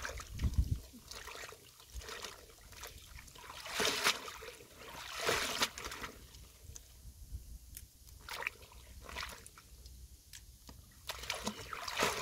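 Stream water splashing and sloshing as a wicker basket of vegetables is dipped and swished in it for washing. The splashes come in uneven surges, the biggest about four and five seconds in and again near the end.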